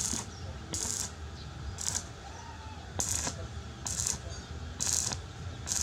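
Short bursts of arc-welding crackle, about one every second, as a series of quick tack or stitch welds are laid on steel, over a steady low hum.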